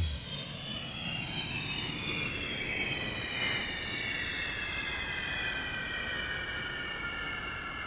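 A jet-like whoosh: a steady rushing noise with several high tones gliding slowly downward.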